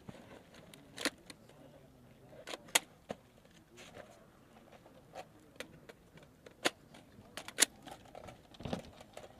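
Scattered rifle shots on a firing range: sharp cracks at irregular intervals, the loudest about a second in and twice more in the second half, with a duller thud near the end.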